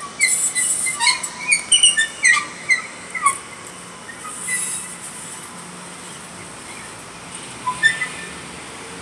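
A songbird chirping in quick, irregular gliding notes through the first few seconds, with a short burst of calls again near the end. Under it a faint steady hum from a passing light rail train.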